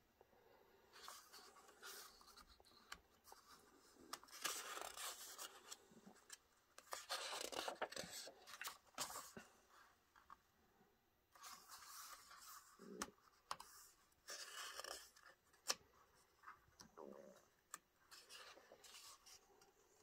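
Pages of a paper instruction booklet being turned and handled: faint, intermittent paper rustles, about six spread out, with a few small clicks.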